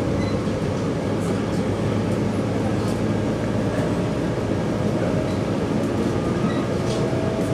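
Steady running noise inside a moving 485-series electric train: a continuous low rumble of wheels on track.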